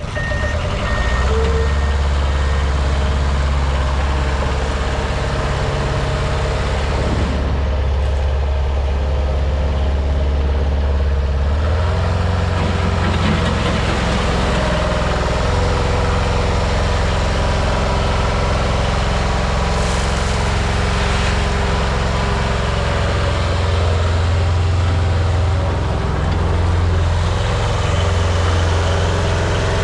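New Holland L555 skid steer's engine running steadily, its speed stepping up about twelve seconds in.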